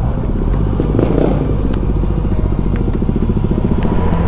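2021 Suzuki GSX-S1000's inline-four engine running steadily as the motorcycle is ridden.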